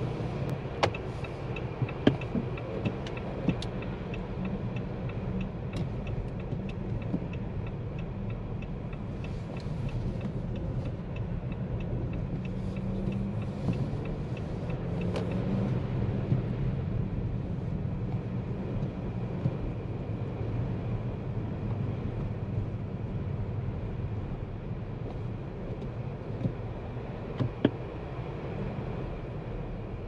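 2023 Jeep Compass 1.5 e-Hybrid driving on a snowy road: a steady low rumble of engine and tyres, growing a little louder with added hiss about halfway through, with a few sharp clicks scattered through it.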